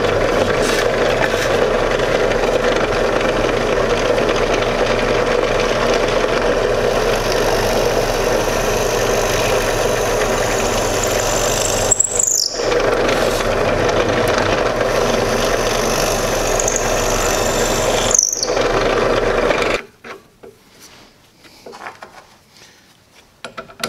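Central Machinery 8-inch 5-speed bench drill press running and drilling into a block of wood: a steady motor and belt hum, with a high-pitched squeal that builds twice and cuts off sharply each time. The running sound stops abruptly about 20 seconds in, leaving a few faint handling clicks.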